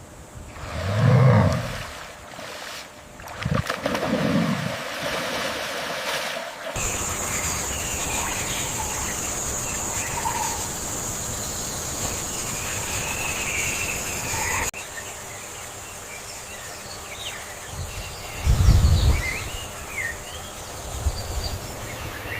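Forest wildlife ambience: birds chirping over a steady high hum, broken by three short, loud, deep sounds about a second in, about four seconds in, and near the end.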